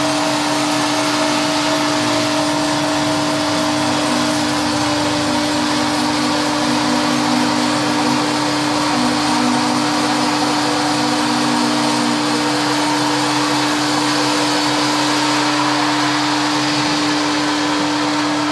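Zenz BN 110 S log band sawmill running with its blade sawing lengthwise through a log: a loud, steady machine noise with a constant hum that does not let up.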